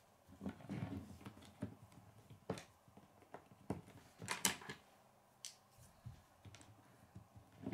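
Plastic K'nex pieces clicking and knocking against each other and the wooden tabletop as the model is handled and turned around, scattered faint clicks with a louder cluster about four and a half seconds in.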